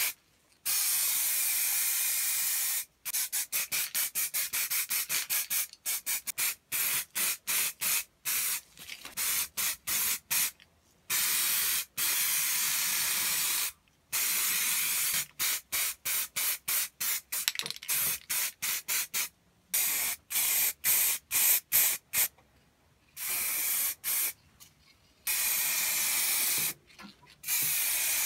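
Aerosol spray paint can hissing as it sprays paint coats onto cast metal pump parts. The spray comes in many quick short bursts and a few longer passes of one to two seconds.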